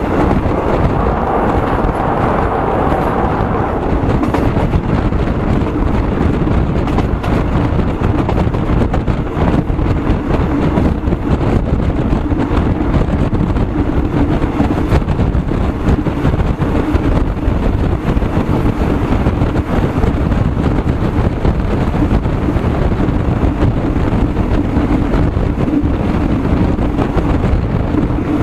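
Wind buffeting the microphone on a moving vehicle: a loud, steady rumble with a faint steady hum underneath.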